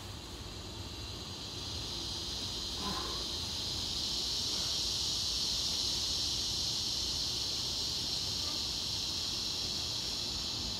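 Insects buzzing in a steady, high drone that grows louder over the first few seconds and then holds.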